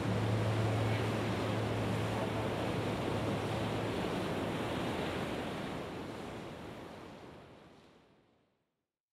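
Steady wash of ocean surf from a relaxation soundtrack, with a low held tone beneath it for the first few seconds. It fades out to silence near the end.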